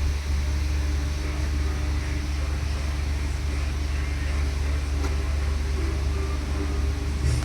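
A steady low mechanical hum, like a motor running, with no rhythm or change in pitch.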